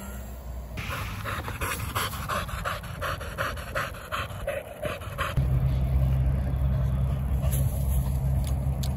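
Dog panting hard and fast, about three breaths a second, after chasing an RC plane. From a bit past halfway a steady low engine hum joins in and becomes the loudest sound.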